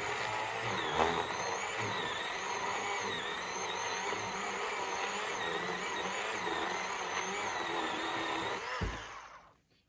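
Achiforce 20 V cordless electric chainsaw cutting into a log. Its motor and chain run steadily, the pitch wavering as the chain bites, then wind down about nine seconds in as the trigger is let go. The chain is already a little slack.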